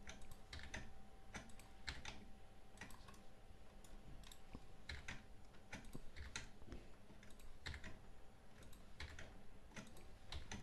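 Computer keyboard keystrokes clicking faintly at an irregular pace, a few strokes a second, as shortcut keys are pressed to extrude and move faces in 3D modelling software.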